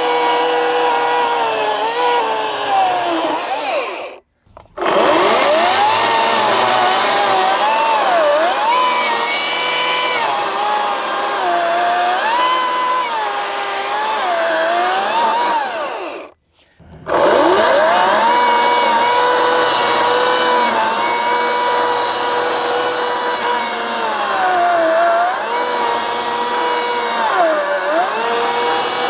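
Ryobi 40V 18-inch brushless battery chainsaw cutting into a stump. Its electric motor whines at a steady pitch that sags repeatedly as the chain bogs in the wood and then recovers. Twice, about 4 and 16 seconds in, the motor winds down to a stop and spins back up.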